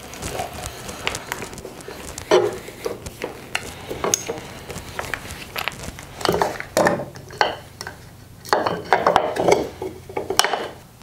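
Drilling the drawbore peg hole through the mortise by hand: irregular scraping, clatter and knocks of the tools against the wood, with no steady motor sound.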